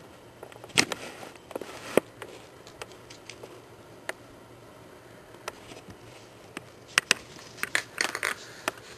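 Hard plastic clicks and knocks from a plastic paw-shaped treat puzzle toy as a poodle puppy noses and paws at it, in scattered bursts. The sharpest knocks come about a second in and at two seconds, a quieter stretch follows, and a quick cluster comes near the end.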